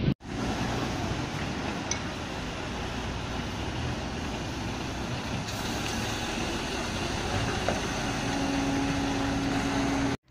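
Steady outdoor din of distant vehicle and machinery engines over a construction site, with a steady droning tone joining about eight seconds in.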